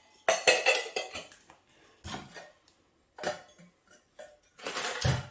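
Small kitchen containers and mini cookware clinking and clattering in several separate knocks as they are handled and lifted apart from their nested stack.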